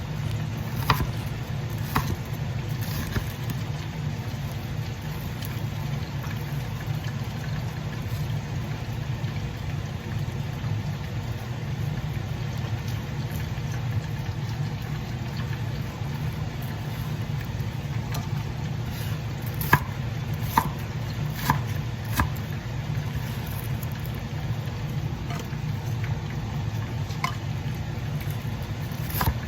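Steady low hum with scattered light clicks, a few near the start and a cluster about twenty seconds in.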